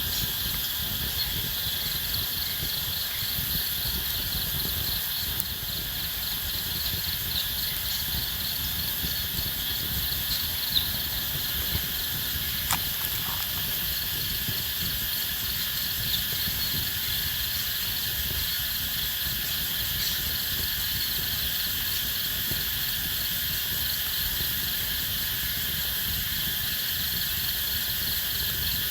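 Forest insects chirping and trilling steadily, several layers at once, one of them pulsing rapidly high up, over a low rumble. A couple of faint clicks come about halfway through.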